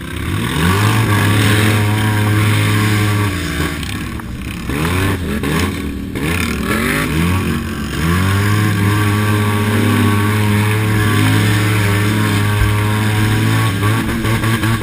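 Polaris RZR S 800 side-by-side's twin-cylinder engine running hard under racing throttle, held at steady high revs. About 4 and 6 seconds in, the revs drop briefly as the throttle lifts and then climb back up.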